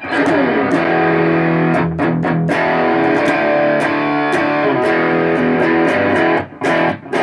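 Godin electric guitar played with distortion through a guitar amp via a Boss WL-20 wireless: ringing distorted chords and single-note lines with sharp pick attacks, with short breaks in the playing near the end.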